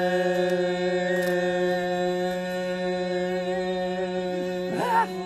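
Voices singing a Turkish folk song, holding one long steady note at the song's close. Near the end a voice breaks in with a short phrase that rises and falls in pitch.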